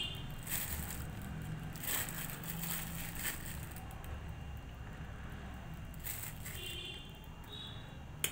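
Spoonfuls of candied fruit cubes being tipped onto a steel plate: a handful of brief, soft scrapes and taps of a spoon on the plate, over a low steady hum.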